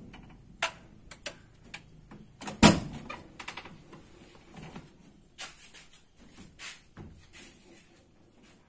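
Mitsubishi L300 pickup's cab door being opened and the driver climbing out of the seat: a run of scattered clicks and knocks, the loudest a sharp knock about two and a half seconds in.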